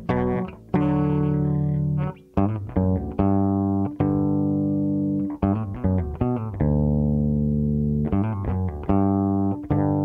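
Solo electric bass guitar played with the fingers: held notes and chords left to ring for a second or more, broken by quicker runs of short plucked notes.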